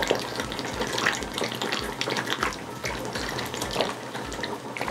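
A person gulping beer from a can, swallowing one mouthful after another without a break.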